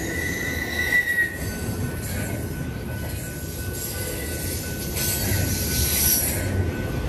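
Double-stack intermodal container cars rolling past on the rails with a steady rumble, and a thin metallic wheel squeal that swells and rises slightly about a second in before settling to a fainter steady squeal.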